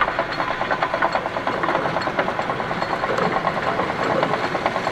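Metal lathe running, with a countersink bit fed from the tailstock cutting a taper into the end of a spinning round metal bar: a steady, fast, even rattling buzz of the machine and the cut.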